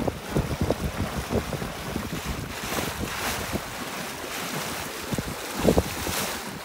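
Water rushing and splashing along the hull of a heeled sailboat under sail, with wind buffeting the microphone in uneven gusts, the strongest about five and a half seconds in.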